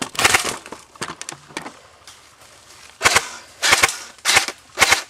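Airsoft rifle firing a series of short bursts of rapid snapping shots, with a couple of single shots between the bursts.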